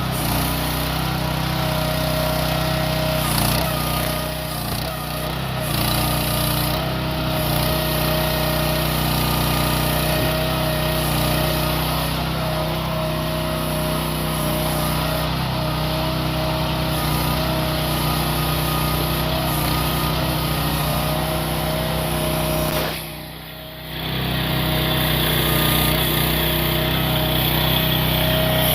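Mini excavator's 420 cc air-cooled single-cylinder gasoline engine running steadily, with a whining tone that comes and goes over it. The sound briefly drops away near the end.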